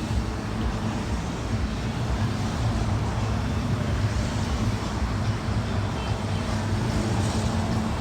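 Road traffic: a steady low hum of motor vehicle engines running.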